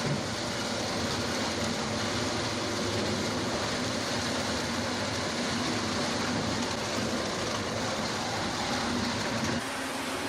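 Sawmill machinery running with a steady, dense mechanical noise and a low hum. Near the end it changes abruptly to a thinner, slightly quieter machine noise with faint high tones.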